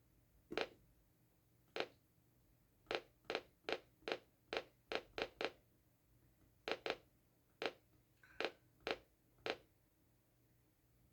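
Button presses on a Reecom R-1650C weather radio's front panel while its settings menu is stepped through: about sixteen sharp clicks, in irregular runs, some coming two or three a second.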